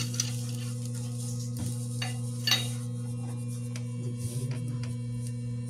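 Metal hand tools clinking and knocking a few times against the screw compressor's fittings, with a short rattle near the end, over a steady low electrical hum.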